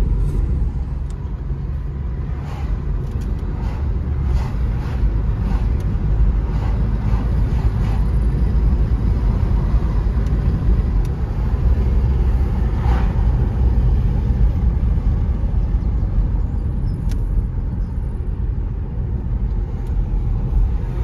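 Car driving along a town road, heard from inside the cabin: a steady low rumble of engine and tyre noise.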